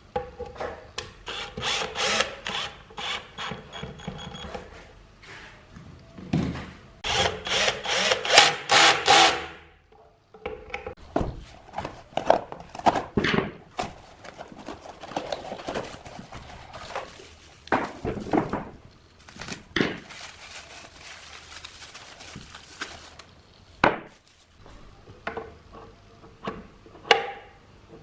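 Hand-tool work on metal machine parts: runs of quick back-and-forth scraping or filing strokes with a faint metallic ring, broken up by single knocks and scrapes.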